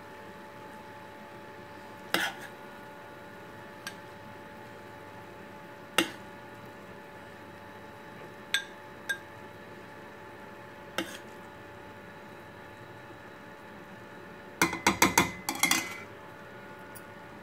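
Metal spoon clinking against a stainless-steel cooking pot, one clink every couple of seconds, then a quick run of clinks about fifteen seconds in. A steady faint hum runs underneath.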